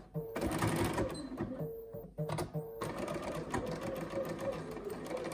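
Electric sewing machine stitching a quarter-inch seam through two pinned quilt blocks. It runs in short stop-start spurts for the first few seconds, then runs steadily from about three seconds in.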